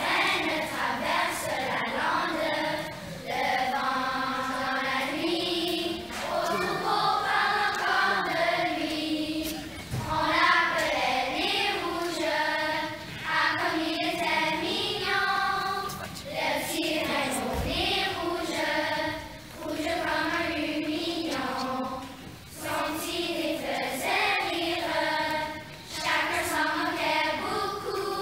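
Children's choir singing a song together, in sung phrases with short breaks between them.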